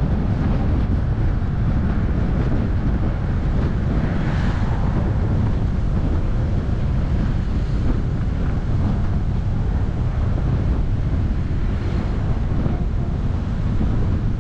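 Steady low rumble of wind buffeting the microphone, mixed with the road noise of a car driving.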